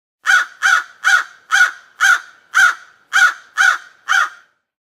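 Crow cawing: a run of nine short, harsh caws at about two a second.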